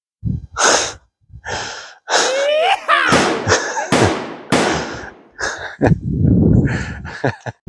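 People laughing hard in a run of breathy, wheezing bursts, with a few voiced squeals of laughter in the middle.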